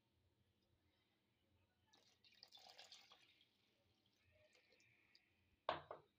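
Water poured from a cup into a bowl of flour, splashing for about a second starting some two seconds in, then trickling more thinly; a short sharp knock near the end.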